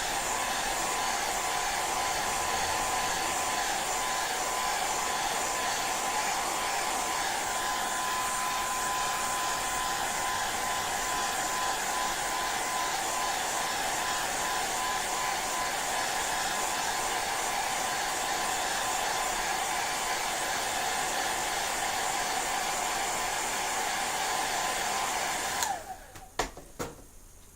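Hair dryer blowing steadily with a faint whine, drying nail polish on a stamper. Near the end it is switched off and spins down, followed by a few light clicks.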